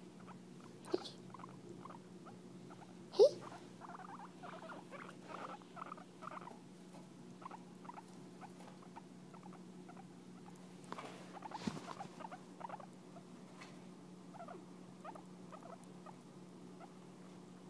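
Guinea pig licking a person's fingertip: many small irregular wet licking and smacking clicks, with two sharper, louder clicks about one and three seconds in, over a low steady hum.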